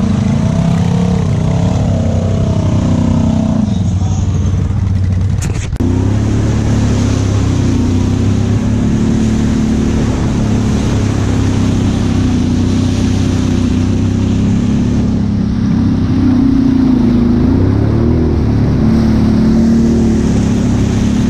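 ATV engine running, its pitch rising and falling over the first few seconds as it is worked through mud. After a break about five and a half seconds in, it settles into a steady drone at riding pace, with brief rises and falls in pitch later on.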